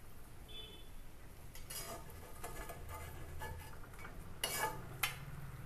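Perforated steel skimmer scraping and knocking against an iron kadhai holding hot oil: a few short scrapes and clinks, the loudest about four and a half and five seconds in.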